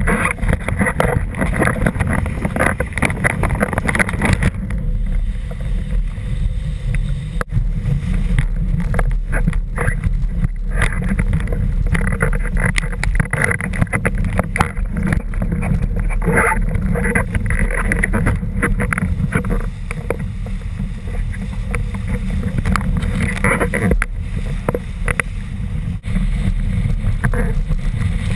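Windsurf board skimming fast over choppy water: rushing and slapping water and spray under the hull, with heavy wind rumble on the microphone throughout and irregular gusts and knocks.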